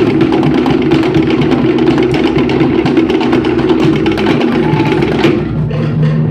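Cook Islands drum ensemble playing a fast, dense rhythm: wooden slit log drums (pate) struck with sticks, with large and small skin drums underneath. About five seconds in the pattern changes, the bright wooden clatter easing and the deeper drum tones coming forward.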